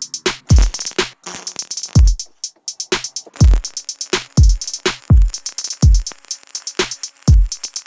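Electronic background music with a steady drum-machine beat: deep kick drums and crisp hi-hats.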